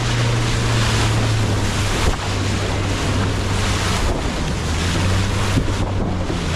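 Boat engine running with a steady low hum, under loud wind buffeting the microphone and the rush of water past the hull.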